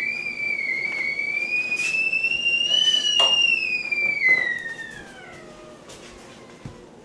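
Stovetop tea kettle whistling at the boil, one steady high whistle that slowly rises in pitch, then falls and fades away about five seconds in. A few knocks sound over it.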